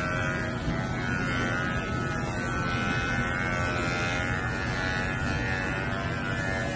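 Corded electric pet hair clipper running with a steady buzz as it is worked through a dog's long white coat.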